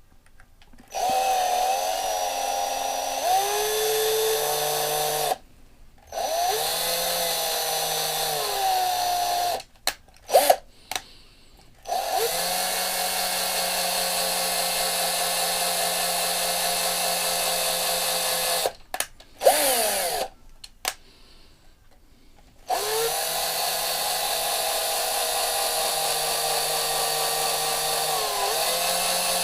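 Small electric drill running in four bursts of several seconds each, drilling into the diecast base of a Matchbox truck to take it apart. Its pitch sags and recovers as the bit bites, with short pauses and a few clicks between runs.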